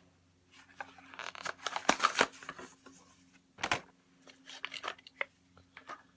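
Hot Wheels toy car packaging handled: plastic and card crinkling and clicking, busiest about two seconds in, then a sharp click and a few lighter taps.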